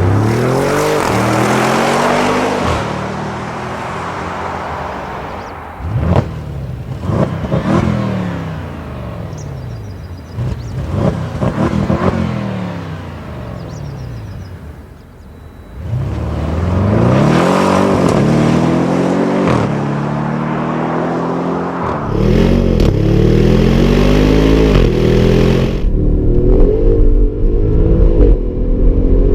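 2014 Audi RS6 Avant's twin-turbo V8 accelerating hard. Its revs climb and fall back several times through gear changes, with a run of sharp pops while it slows in the middle, then it pulls hard again near the end.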